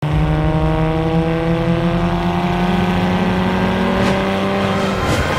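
Car engine accelerating, its pitch climbing slowly and steadily, then breaking off about five seconds in, with short whooshes near the end.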